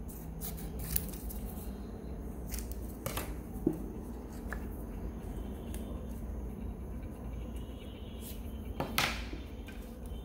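A few scattered light clicks and taps from handling metal Zippo lighters, over a steady low hum.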